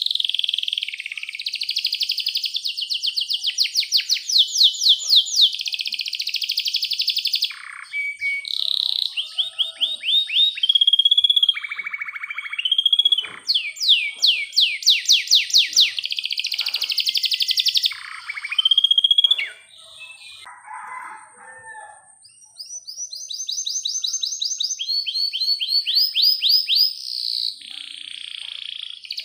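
Domestic canary singing a long, continuous song of fast trills and rolls of rapidly repeated notes, many of them rising, broken by a short quiet spell about two-thirds of the way through.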